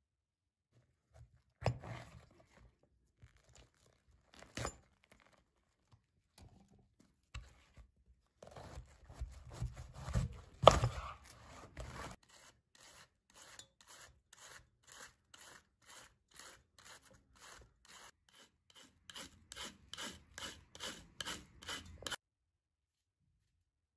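Kitchen knife cutting a head of white cabbage: irregular cuts and scrapes with a sharp knock near the middle, then steady shredding strokes, about two or three a second, growing louder before stopping suddenly.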